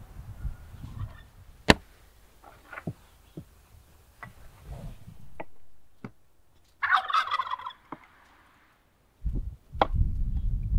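A turkey gobbles once, about seven seconds in: a rapid rattling call lasting about a second. Sharp clicks and soft knocks are scattered around it, the loudest a single click near the start, and a low rumble comes in near the end.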